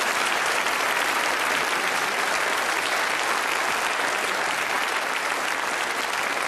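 Studio audience applauding, steady and unbroken.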